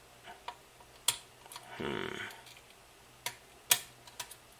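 A metal pick clicking and prying inside an Apple Watch case as it works under a glued-in part: a few sharp, separate clicks, with a softer, longer scraping sound about two seconds in.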